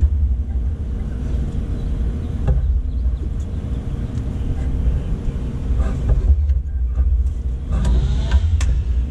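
A steady low rumble, with a few faint metal clinks as a pipe wrench is set and adjusted on a fitting, once a few seconds in and again near the end.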